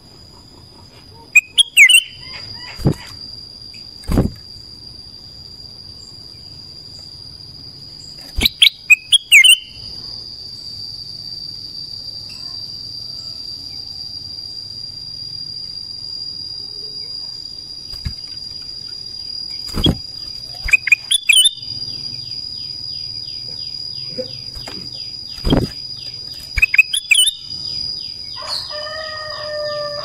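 A caged ruby-throated bulbul (kutilang emas) gives short, sharp, very loud calls in several quick bursts, with long gaps between them. A steady high insect drone runs underneath. Near the end a run of falling whistled notes comes in.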